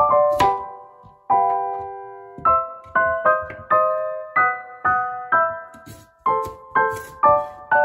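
Gentle piano background music, chord after chord. A few faint knife taps on a wooden cutting board come through underneath, mostly near the end, as a cucumber is sliced.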